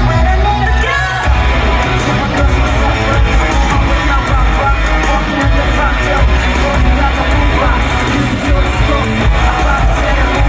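Loud live pop concert music with singing over a heavy, steady beat.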